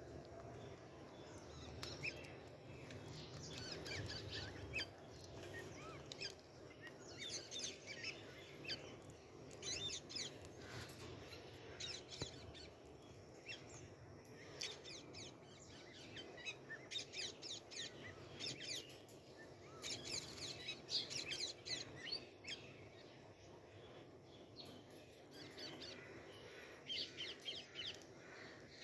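Birds chirping in clusters of short, quickly repeated high notes every few seconds, over faint steady low background noise.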